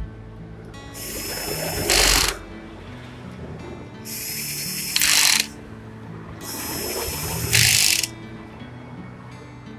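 Cordless power driver running three times, about a second and a half each, driving the crankcase bolts of a Honda C-series engine. Each run ends in a short, louder burst as the bolt seats.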